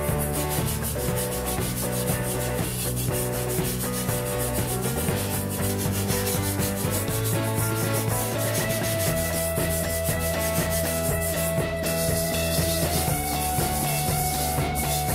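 Hand wire brush scrubbing the wet, rusted surface of a steel M40 helmet shell in quick back-and-forth strokes, a continuous scratchy rasp.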